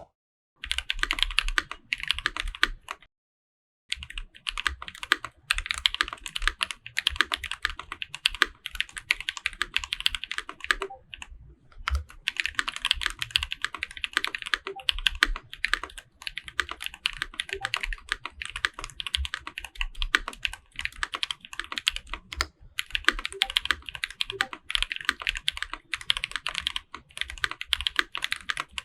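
Varient 82 custom mechanical keyboard with a brass plate being typed on fast, its lubed Holy Panda tactile switches and GMK keycaps giving a dense, steady patter of keystrokes. It is dampened with PCB foam, case foam and a tape mod. The typing stops for about a second a few seconds in.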